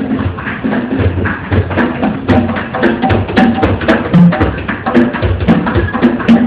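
Escalator running with a loud rhythmic knocking and short pitched squeals that repeat several times a second.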